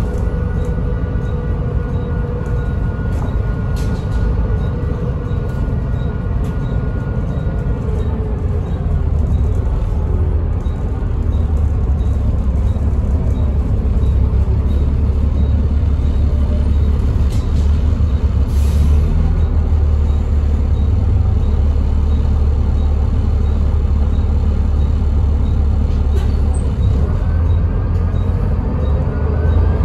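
Volvo B7TL double-decker bus under way, heard from inside the lower deck: a steady low diesel drone with the whine of its ZF automatic gearbox. The whine fades about a quarter of the way through and rises again in pitch near the end as the bus picks up speed. There is one brief hiss about two-thirds of the way through.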